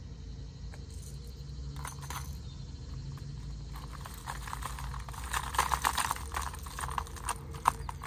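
Hard plastic fishing lures and their metal treble hooks clicking and jangling as they are handled, a run of quick rattles that starts about halfway through and grows louder near the end.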